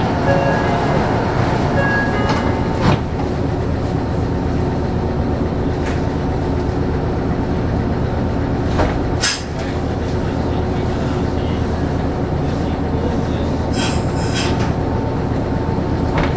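Steady hum and noise of a stopped Meitetsu electric train's onboard equipment, with a few sharp clicks and one louder knock about nine seconds in.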